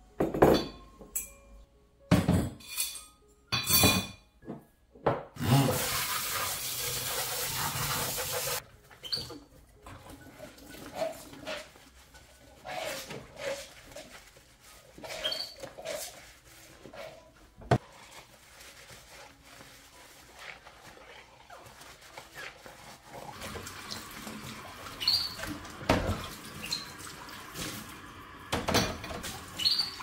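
Washing dishes by hand at a kitchen sink: ceramic mugs and bowls clink and knock, and a sponge scrubs. The tap runs for a few seconds, then runs steadily through the last several seconds while a mug is rinsed.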